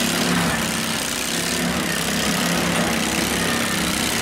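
Several garden tractor engines running at once in a steady, overlapping drone, with a constant noisy wash on top.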